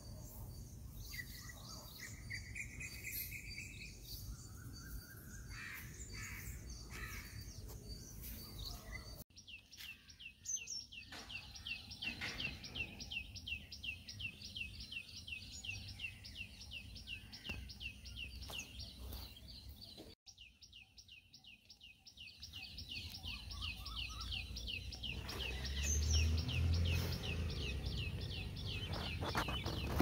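A small bird calling: a long, fast, even run of short, high, downward-slurred chirps, several a second, after a few scattered chirps. A low rumble comes in near the end.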